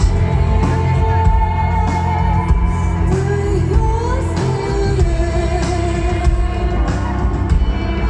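Rock band playing live through a festival PA, heard from the crowd: a woman's sung melody over heavy bass, guitars and drums.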